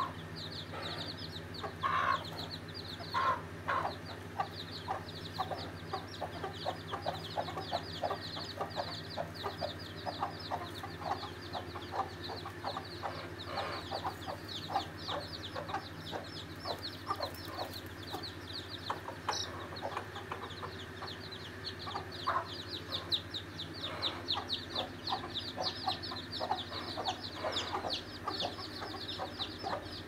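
Local-breed chicks peeping in quick, high, short notes that run on throughout, with hens clucking now and then; a few louder calls stand out, twice in the first few seconds and once past the middle.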